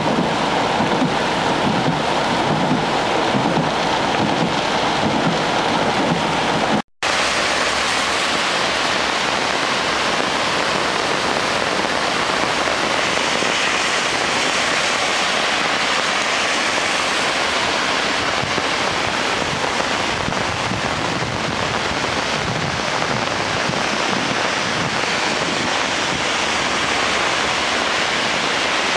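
Steady rush of heavy rain, rougher and lower for the first seven seconds. It drops out for an instant about seven seconds in, then carries on as an even hiss.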